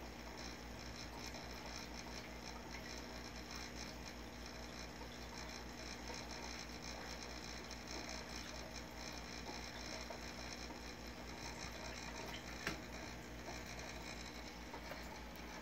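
Reef aquarium equipment running: a low steady hum under a faint, constant fine crackle of circulating water. One sharp click stands out about three-quarters of the way through.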